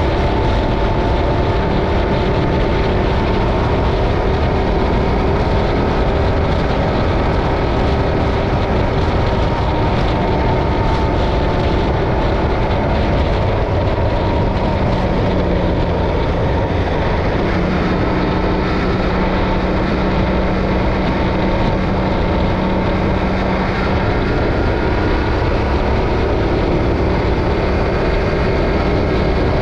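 Yamaha Ténéré 700's parallel-twin engine running steadily at highway cruising speed, under heavy wind rush on the bike-mounted camera's microphone.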